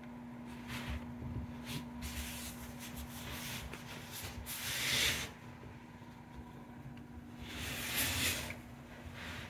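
A cat's fur rubbing and brushing against the phone's microphone as it pushes its head against it, in several rustling bursts; the loudest is about five seconds in and another comes near eight seconds. A faint steady hum runs underneath.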